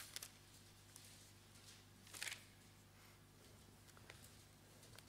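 Near silence: room tone with a faint low electrical hum, and one brief soft rustle about two seconds in.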